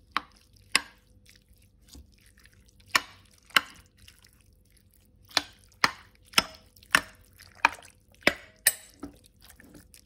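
Metal spoon stirring crumbled cooked sausage into chopped tomatoes in a crock-pot insert, knocking against the pot about a dozen times at uneven intervals, with soft wet stirring between the knocks.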